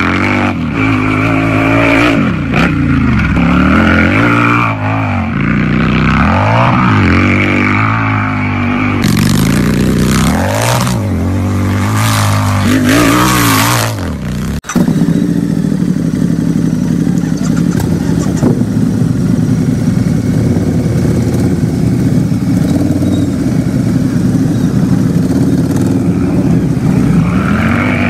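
Harley-Davidson V-twin motorcycle engine revved repeatedly, its pitch rising and falling with each blip of the throttle. About fifteen seconds in the sound cuts off abruptly and comes back as a steady idle, and another rev begins near the end.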